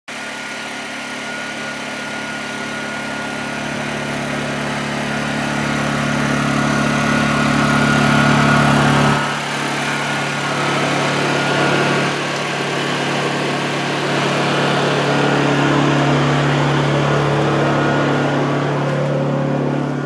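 Honda EU2000i inverter generator's small single-cylinder four-stroke engine running steadily with a constant hum, growing louder over the first several seconds.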